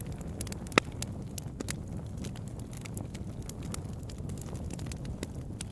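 Campfire crackling: a steady low rumble of the flames with quick, irregular snaps and ticks, and one loud pop just under a second in.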